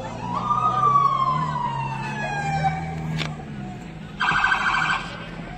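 Police car siren giving one wail that rises quickly and then falls slowly. About a second and a half later comes a short, harsh horn blast.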